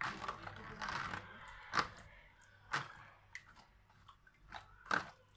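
Spoon stirring a liquid marinade thick with chopped garlic in a plastic tray: wet squishing, strongest in the first second or so, with three sharp clicks of the spoon against the tray.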